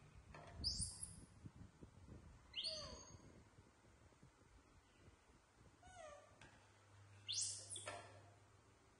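Baby macaques giving about four short, thin, high-pitched squeaking calls, each sweeping steeply up or down in pitch, with faint soft knocks in the first second.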